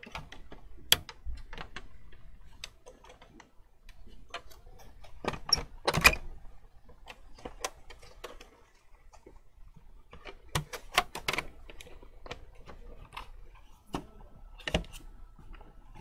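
Irregular plastic-and-metal clicks and knocks as an Xbox Series S's metal-shielded internal chassis is handled and fitted into its white plastic outer case. There is a louder clatter about six seconds in and a cluster of knocks around ten to eleven seconds.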